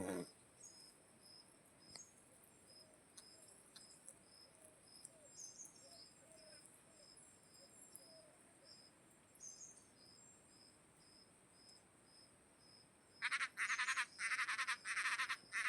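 Chorus of calling insects and frogs: a steady high whine with a short chirp repeating about twice a second. About 13 seconds in, a much louder pulsing call starts suddenly, repeating roughly twice a second.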